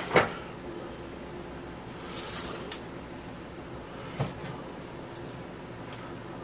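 A sharp knock just after the start, then a few light clicks and a brief rustle over a low steady hum: household items and the camera being handled at a kitchen counter.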